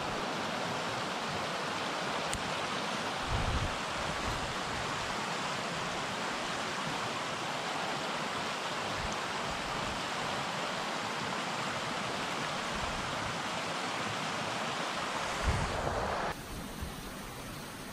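Steady rush of a fast-flowing stream tumbling over rocks, cutting off abruptly near the end. A few faint low bumps come from handling.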